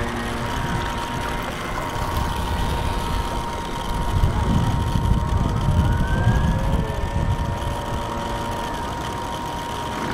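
Radio-controlled model boats running on a lake: a steady, high motor whine, with a second whine that rises in pitch and then fades about halfway through as a boat passes.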